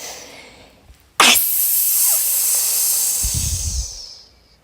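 A person's long, breathy exhale hissing into the microphone, starting suddenly about a second in and fading away near the end: a voice-acted sleepy breath.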